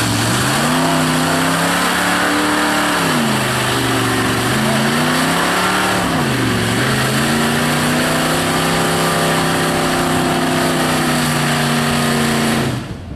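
Engine of a lifted Chevrolet square-body mud truck on oversized tires, revving under load as it churns through a mud pit. The engine note climbs and holds, drops off twice and climbs again, with the tires' spray and slop under it.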